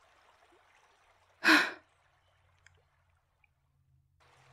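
A woman's single short, breathy sigh about a second and a half in, over a faint steady hiss of background ambience that drops out after the sigh and returns near the end.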